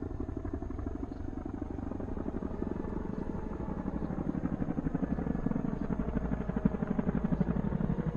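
Helicopter rotor chopping steadily in a rapid pulse, with a faint high steady whine above it.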